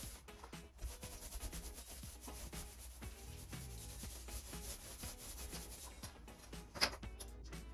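Paint roller rolling paint onto a board wall in repeated back-and-forth strokes, a soft rasping rub, with one sharp knock near the end.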